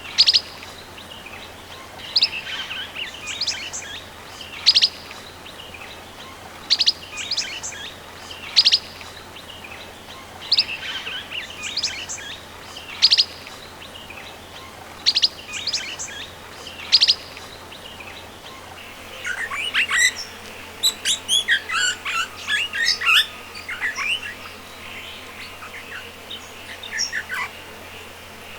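Swift parrots calling: short, sharp, high chirps in quick clusters about every two seconds, breaking into a denser flurry of chirping about two-thirds of the way through, over a steady background rush of water.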